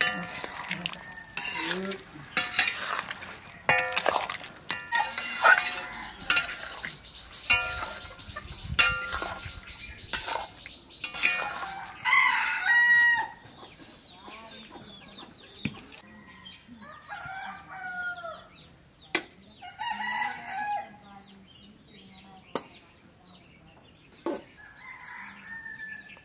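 A metal spatula scraping and knocking against a metal kadhai as curry is stirred, with a rooster crowing loudly about twelve seconds in. Over the quieter second half, chickens cluck, with a few sharp knocks.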